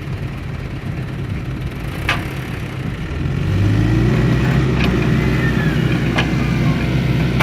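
A motor vehicle's engine running steadily, then revving up louder from about three seconds in, with a few sharp knocks over it.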